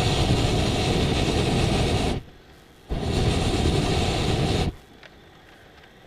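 Hot-air balloon's propane burner firing in two blasts of steady roaring noise. The first cuts off about two seconds in; the second starts a moment later and stops suddenly after nearly two seconds.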